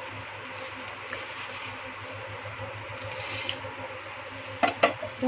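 Water heating to the boil in a steel pot on a stove, a steady bubbling hiss. Near the end, a few sharp knocks as a plate is tapped against the pot's rim to tip vermicelli in.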